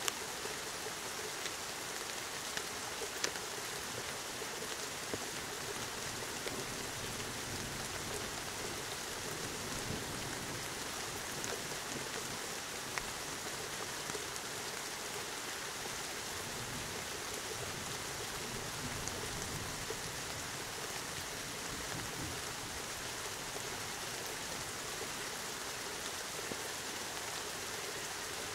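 Steady rain falling in a continuous hiss, with a few sharp ticks of single drops striking close by.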